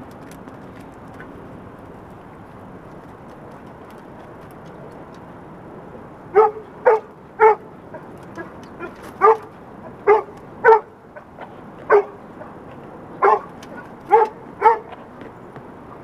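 A search dog barking: after about six seconds of steady background hiss, about ten loud, sharp barks come in quick pairs and threes.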